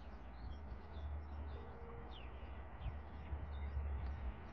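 Birds chirping with short, mostly falling high calls scattered throughout, over a low rumble.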